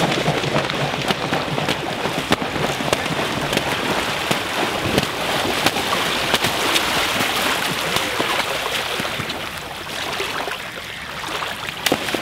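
Mute swans fighting and chasing in the water: heavy splashing and wings beating on the water surface, with many sharp splashes, easing off briefly near the end.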